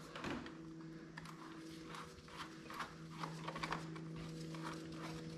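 Faint clicks, about two a second, as a hand-held screwdriver tightens the hose clamps on a 5.3L V8's intake tube. A steady low hum runs underneath.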